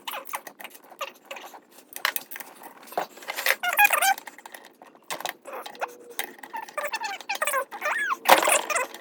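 Sped-up time-lapse sound of bicycle drivetrain work: rapid clicking and clattering of parts and tools, with high chirping squeaks like voices played fast.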